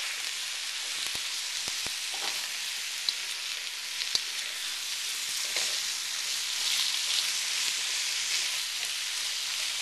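Chopped onions, celery, ginger and garlic sizzling steadily in hot oil in a wok as red curry paste is stirred through them, with a few light clicks.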